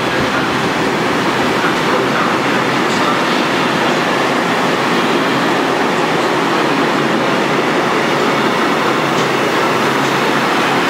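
Freight train of flat wagons loaded with steel slabs running past, a steady, unbroken noise of steel wheels on rails.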